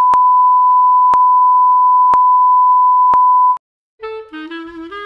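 Bars-and-tone test signal: a steady, loud pure tone with a click about once a second, cutting off suddenly about three and a half seconds in. After a brief silence, melodic music starts near the end.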